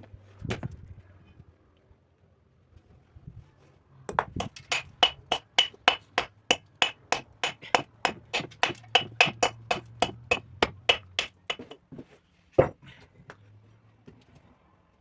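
A quick, even run of sharp strikes, about three a second for some seven seconds, each with a slight ring, followed about a second later by one harder strike.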